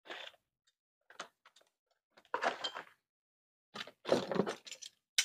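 Irregular knocks and rustles from tools and parts being handled on a workbench during blender wiring work. About five short bursts come with gaps between them, the loudest around two and a half and four seconds in.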